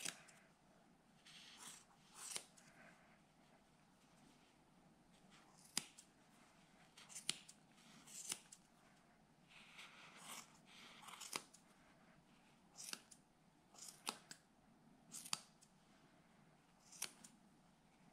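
Faint, sharp snips of small scissors cutting through angora rabbit wool, spaced a second or more apart, with soft rustling of the wool between some of them.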